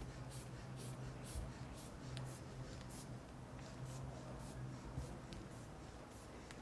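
Rubber squeeze bulb of an aneroid blood pressure cuff being pumped to inflate the cuff: faint short airy puffs about twice a second, less regular after about three seconds, over a low steady hum.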